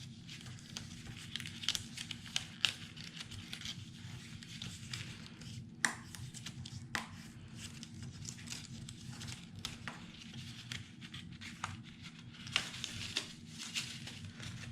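Die-cut cardstock pieces being pushed out of their sheets by hand: paper rustling with many small, sharp pops and ticks as the pieces break free.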